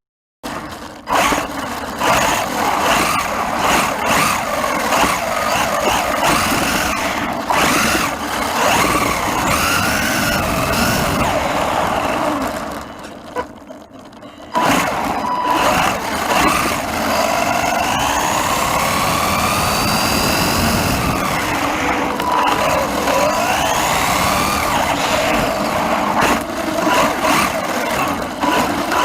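Wltoys 144001 1/14-scale RC car being driven, its brushed 550 electric motor whining and repeatedly rising and falling in pitch with the throttle. It goes quieter for a couple of seconds about halfway through.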